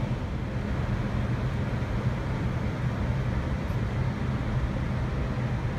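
Steady flight-deck noise of an Airbus A320 on final approach: a constant low hum under an even hiss.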